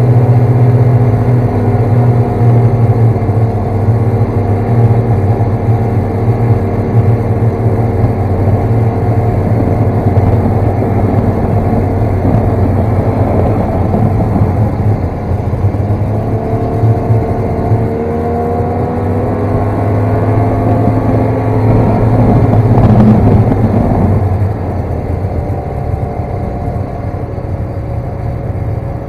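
Snowmobile engine running under way, its pitch rising and falling as the throttle changes. It is loudest a little over twenty seconds in, then eases off.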